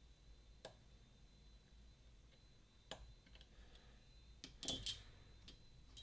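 Faint, scattered metallic clicks of a lock pick working the pins inside a Mottura CP6 dimple lock, with a louder double click near the end.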